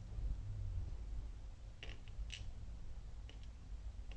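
A few light metallic clicks from handling the pins, springs and tools of a disassembled Assa 700 lock, the clearest two about two seconds in and two fainter ones a second later, over a low handling rumble.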